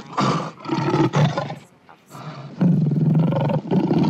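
Lion roaring in a series of deep, rough grunting calls, about five in a row with short pauses between them.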